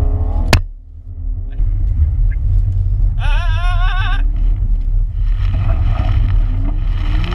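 Steady low rumble of a car's engine and tyres, heard from inside the cabin as it turns on a snow-covered track. There is a sharp click about half a second in, and a brief wavering high-pitched cry around three seconds in.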